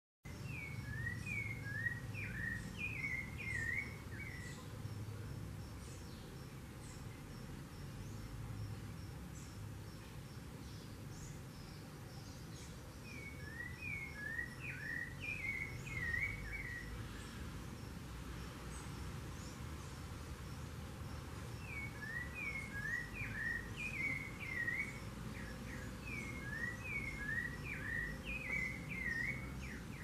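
Rufous-bellied thrush singing: three bouts of quick, slurred whistled phrases, each a few seconds long, with pauses of several seconds between them.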